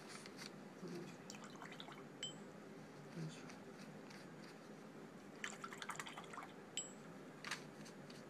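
Faint clicks and light watery dabbing of a Chinese painting brush being dipped and worked in a water or ink dish, with a small cluster of ticks a little past the middle.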